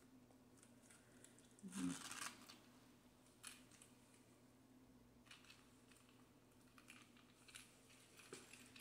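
Near silence with faint rustling and a few soft clicks from a handbag being handled and searched inside. The loudest rustle comes about two seconds in.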